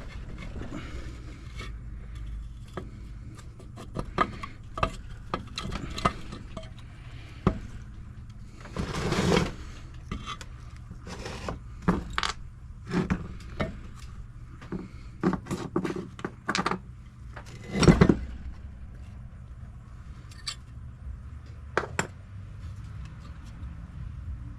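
Steel gears and shaft of a Borg Warner T96 three-speed transmission clinking, knocking and scraping in the case as a loose shaft is worked out. Scattered metal clinks, a scrape lasting about a second around nine seconds in, and the loudest knock around eighteen seconds in.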